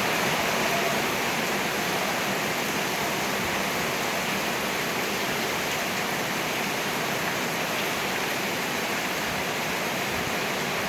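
Rain pouring down steadily, an even hiss with no breaks.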